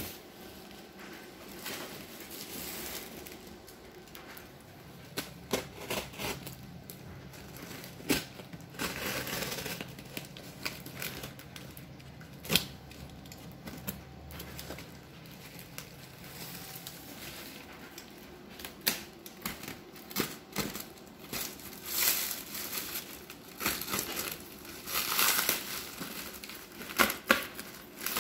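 Black plastic parcel wrapping being cut and pulled open: irregular crinkling and tearing with sharp clicks, busier in the last several seconds.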